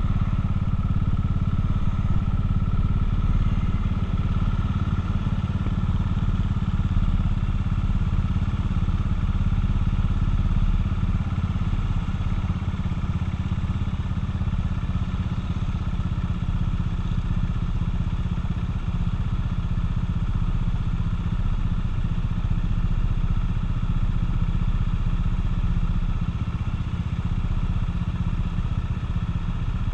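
Buell motorcycle engine heard from the rider's seat, a steady low engine note as the bike rolls to a stop and then idles.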